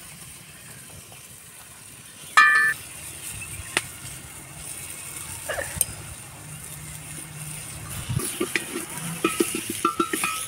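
Wooden spoon stirring and scraping red chilli frying in a steel pot over a wood fire, with a faint sizzle and a quick run of scraping strokes over the last couple of seconds. A short ringing metallic clink about two seconds in is the loudest sound.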